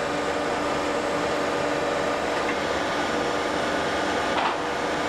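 Steady mechanical hum with an even hiss from a compression moulding press running in a workshop.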